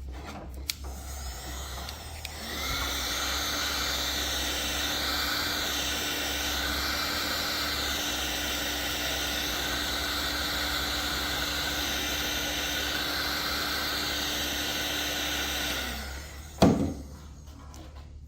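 A small high-speed power tool runs steadily for about thirteen seconds at one constant pitch. It starts about two and a half seconds in and winds down near the end. Two sharp knocks follow.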